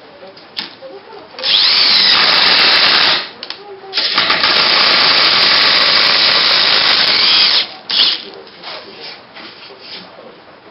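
Electric drill with a woodworking drill bit boring into wood, running twice for a few seconds each time: the motor's whine rises as it spins up and falls as it stops. Light knocks and handling noises come between and after the runs.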